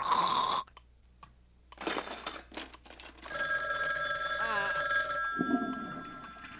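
A telephone bell starts ringing about three seconds in and keeps ringing, slowly growing fainter. It follows a brief loud sound that cuts off in the first second and a short rustle.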